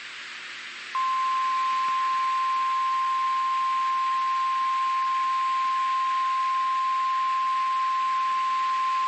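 NOAA Weather Radio 1050 Hz warning alarm tone: a single steady high-pitched beep that starts about a second in and holds unchanged, over faint radio hiss. It is the alert tone that signals an incoming National Weather Service warning.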